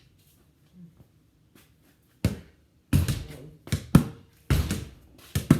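A basketball thudding as it is bounced and hit, a string of sharp impacts starting about two seconds in and coming several to the second near the middle and end.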